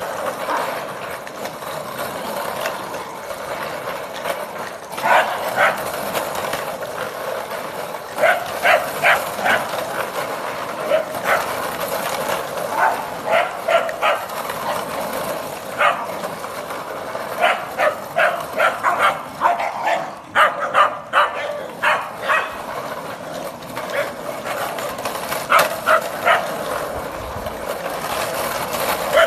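A pack of small terriers, Scottish terriers with a Sealyham and a Jack Russell, yapping in excited play. The short barks come in quick runs every few seconds over a steady background noise.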